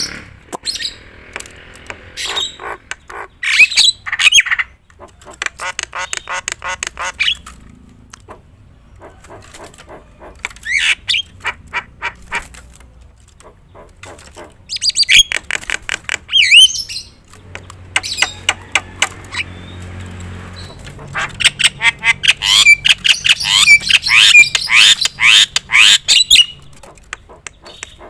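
Javan myna singing loudly in repeated bouts. Each bout is a fast run of harsh, chattering notes mixed with rising whistles, and short pauses separate them.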